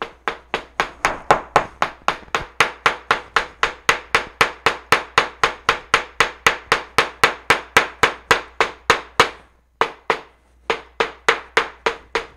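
Steel claw hammer pounding a plant through a paper towel onto paper over a cutting mat, a steady run of hard blows about four a second, with a short break about three quarters of the way through before the blows resume. The pounding crushes the leaves and stem so their pigment prints onto the paper.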